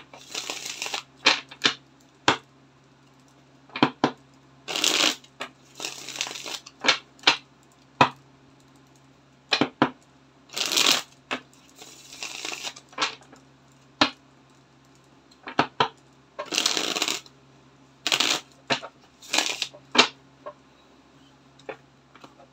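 A deck of tarot cards being shuffled by hand: swishing runs of cards lasting up to a second, repeated every few seconds, with sharp clicks and taps between them as the cards slap and the deck is squared.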